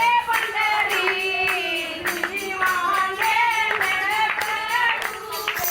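A devotional bhajan sung in a high voice, with a steady beat of hand-claps and percussion.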